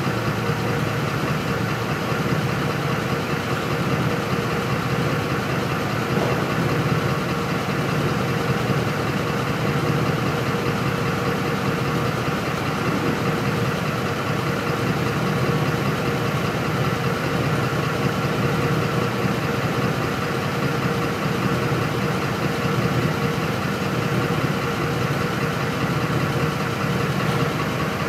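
Ford 5.4-litre V8 idling steadily on starved fuel, with fuel rail pressure down around 9 psi because of a faulty fuel pump driver module, running on the edge of stalling.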